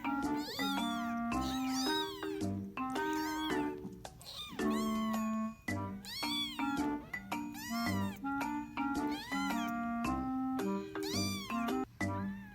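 Cats meowing over and over, each meow rising then falling in pitch, over background music with a low bass note about once a second.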